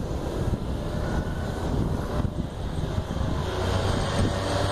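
Honda Rebel CMX250 motorcycle engine approaching from a distance, its note rising out of the background and growing louder toward the end. Wind rumbles on the microphone throughout.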